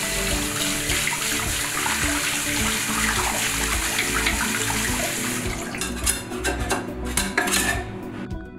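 Tap water running into a bathroom sink over a resin 3D print, with a bristle brush scrubbing at it. In the last three seconds a run of short clicks and knocks as the print is handled and taken off its metal build plate.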